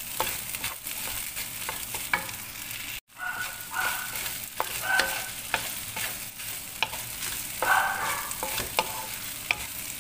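Fried rice sizzling in a hot wok while it is stirred and tossed with a wooden spatula, the spatula scraping and knocking against the pan. The sound cuts out for a moment about three seconds in.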